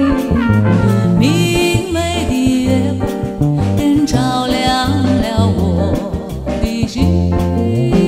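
Background music: an upbeat, jazz-flavoured song with brass or saxophone lines over a steady bass and drums.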